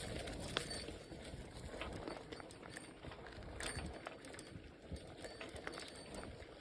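Bicycle rolling along a rough path: a low rumble from the tyres with scattered clicks and rattles.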